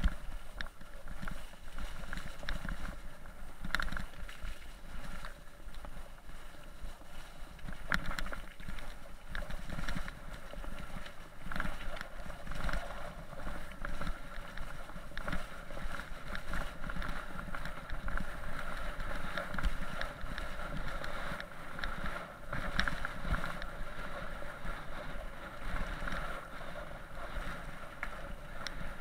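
Mountain bike rolling fast over a rough gravel and mud track: steady tyre noise on the stones, with frequent sharp knocks and rattles as the bike hits bumps. Some wind noise on the microphone.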